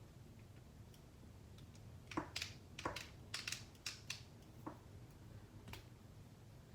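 Hand wire-stripping pliers biting into and stripping the insulation off 10-gauge wire. About two seconds in comes a run of sharp clicks and snaps over roughly four seconds, then it stops.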